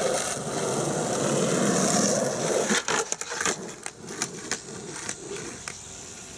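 Skateboard wheels rolling over rough asphalt, then, about three seconds in, a run of sharp irregular clacks and knocks as a skateboard hits the pavement.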